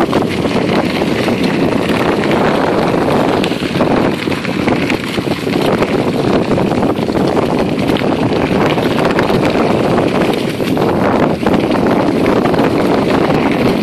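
Bicycle tyres rolling and crackling over dry fallen leaves on a trail, with a continuous rush of wind on the microphone from riding.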